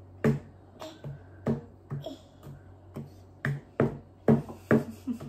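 A wooden spoon knocking against a mixing bowl of stiff dough, about a dozen sharp clacks roughly two a second, uneven in spacing and loudest towards the end, as a toddler bangs and stirs.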